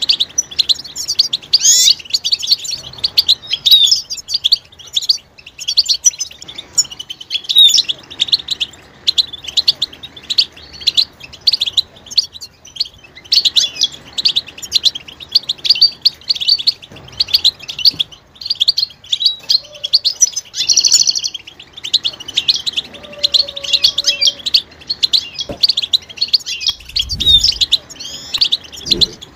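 European goldfinches twittering and chattering in quick, unbroken runs of high chirps, several birds calling together. These are the excited breeding-condition calls that keepers play to rouse a silent male goldfinch into song.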